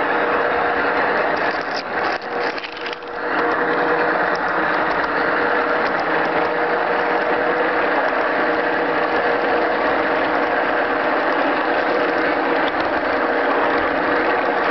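Large-scale garden-railway train running along its track, with a steady clattering whir from its wheels and gear drive over a steady tone. The sound dips briefly about two seconds in, then runs on as before.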